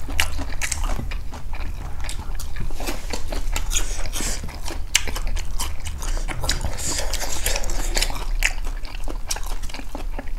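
Close-up eating sounds: chewing and biting into pork curry meat, many short irregular clicks, over a low steady hum.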